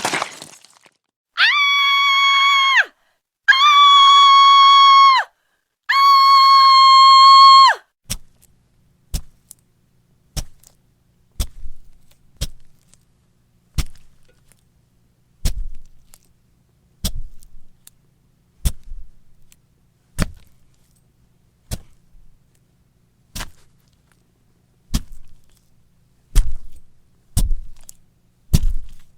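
Foley effects for a violent killing. A single hit is followed by three long, high-pitched screams, then a long series of heavy blows, about one a second, each a sharp crack with a low thud.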